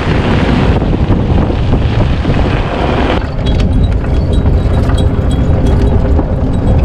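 Strong wind buffeting the microphone: a loud, continuous rumbling roar that flutters rapidly, its higher hiss easing about three seconds in.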